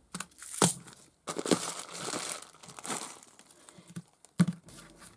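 Paper rustling and crinkling as a handmade paper journal is picked up and handled, with a sharp tap about half a second in and another near the end.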